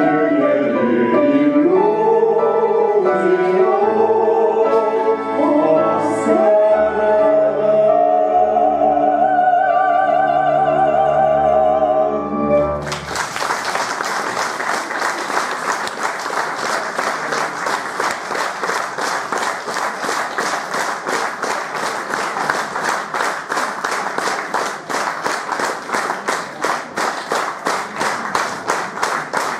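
A woman and a man sing the closing phrase of an operetta duet with accompaniment, ending on a long held note with vibrato. About thirteen seconds in, the music stops and the audience breaks into applause that continues to the end.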